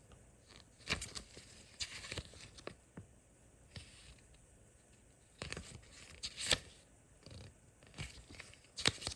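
Packaging and small parts being handled: scattered rustles and crinkles with light clicks, the sharpest about six and a half seconds in and another just before the end.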